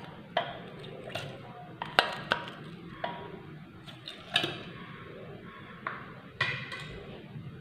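Steel spoon clinking and knocking against a stainless steel mixer jar while chunks of frozen milk are scooped in: about seven sharp clinks, each with a short ring.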